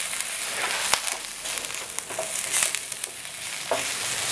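Diced onion and salam leaves sizzling in hot coconut oil in a non-stick frying pan, stirred with a silicone spatula. A sharp click about a second in.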